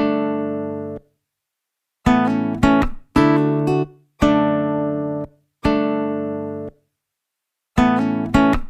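Background music: a string of plucked chords, each struck sharply and left to die away, with a few short chords close together and a couple of pauses of dead silence between them.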